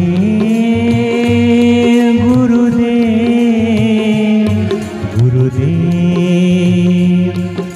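Devotional mantra chanting sung to music: long held notes with a slight waver over a steady low drone and pulse, with a brief break about five seconds in.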